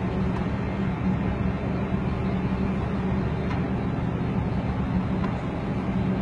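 Steady low drone of a boat engine over a constant rushing noise.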